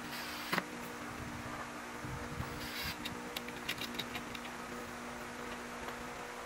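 Pine slats being shifted and set into place against a wooden panel on a concrete floor. There is a short scuff with a sharp knock about half a second in, and a scatter of light wooden clicks and taps from about three to four and a half seconds, over a steady low hum.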